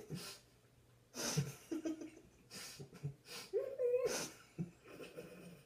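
People with their mouths full of water breathing hard through their noses while stifling laughter: several sharp nasal snorts, and a short muffled hum just before the last snort.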